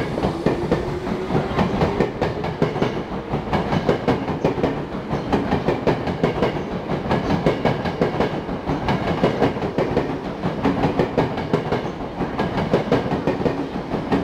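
Tokyo Metro 07 series electric commuter train pulling away and accelerating past. A whine rises in pitch over the first few seconds, and the wheels clatter steadily over the rail joints as the cars go by.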